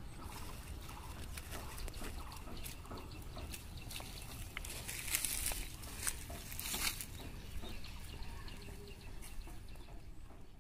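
Outdoor ambience: a steady low rumble with scattered rustles and clicks, including two brief louder rustling bursts about five and seven seconds in, and faint animal calls.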